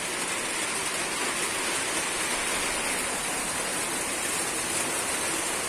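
Rain falling steadily, an even hiss of water with no breaks.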